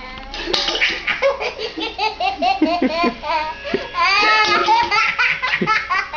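A young child laughing hard in quick, repeated bursts, set off by his mother's hiccups.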